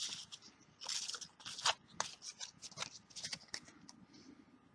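Trading card booster pack wrapper being torn open and handled, with the cards slid out: a run of irregular crinkles and crackles that grows quieter near the end.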